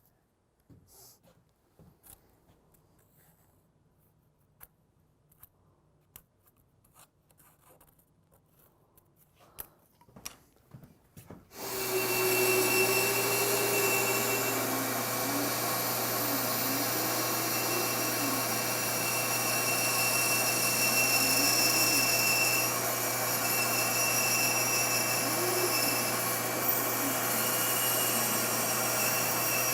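Quiet handling with scattered light clicks and taps, then, about twelve seconds in, a power tool starts suddenly and runs steadily and loudly, with a constant hum and a wavering whine, during woodworking on a shop build.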